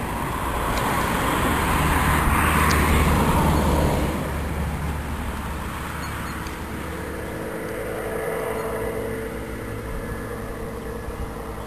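A car passing by, its engine and tyre noise swelling and then fading over about four seconds, followed by a fainter steady hum.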